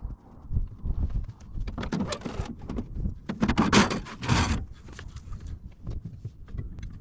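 Irregular knocks, clanks and scuffing from hand work on an excavator, with two louder scraping, rustling stretches about two seconds in and again around four seconds in.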